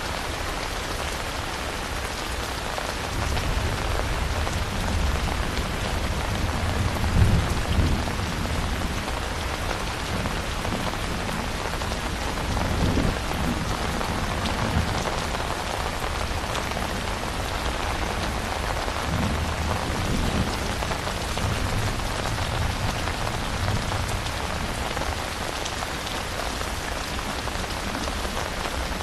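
Steady rain falling, with low rumbles of thunder swelling and fading underneath, the loudest about seven seconds in.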